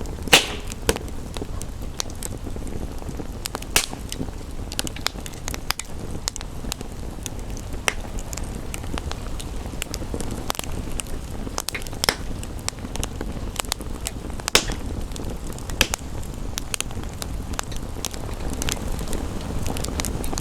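Wood fire crackling, with scattered sharp pops, the loudest about half a second in, over a steady low rush of rain.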